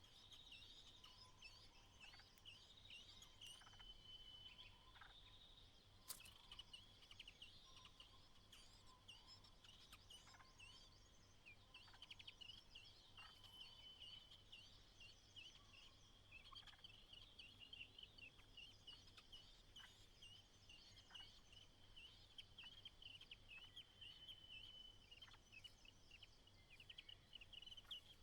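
Faint, rapid bird chattering that runs on without a break, a dense stream of short high-pitched notes.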